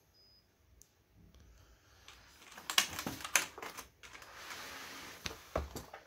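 Two Alienware mechanical keyboards, the 510K and the AW768, handled and set down: a quick run of plastic clicks and clacks from the keys and cases, a brief scraping rustle, then two knocks near the end.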